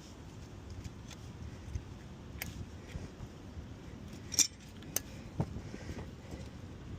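A few scattered sharp metallic clinks and taps from tools or metal parts being handled, the loudest a little over four seconds in.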